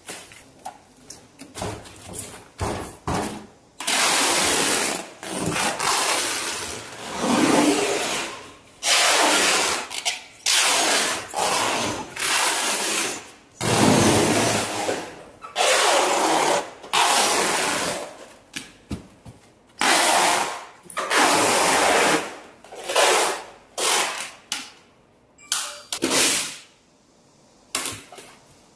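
Plastic stretch-wrap film being pulled off its roll and wound around a machine, in a long run of loud crackling pulls about half a second to two seconds each, some with a squeal that bends in pitch.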